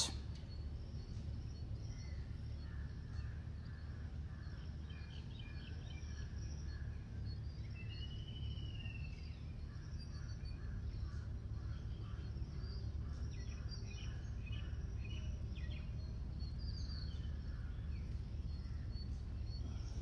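Outdoor woodland ambience: faint, scattered bird calls and chirps, including one rising-and-falling call about eight seconds in, over a steady low rumble.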